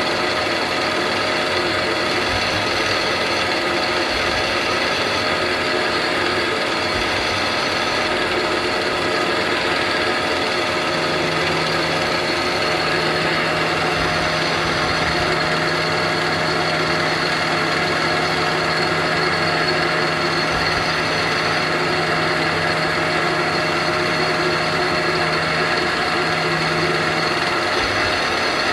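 CNC lathe running steadily while its live tool engraves a part under C-axis and Y-axis control, a constant mechanical whir with several steady tones. A low hum comes in partway through and stops near the end.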